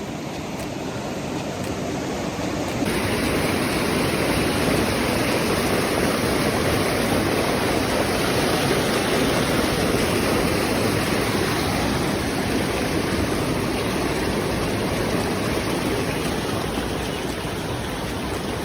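Waterfall and creek water rushing steadily over rocks, getting louder about three seconds in.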